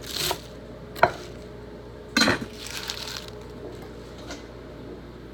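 Kitchen handling sounds while making vegetable soup: a sharp clink of a utensil on a pot or dish about a second in, then brief scraping and rustling and a few light clicks.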